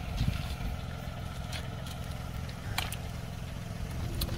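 A steady low engine hum, as of an engine idling, with a few faint clicks.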